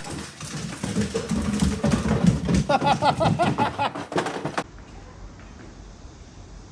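Indistinct high-pitched vocalizing with rapid rises and falls in pitch for about four and a half seconds, then a sudden cut to a faint steady hiss.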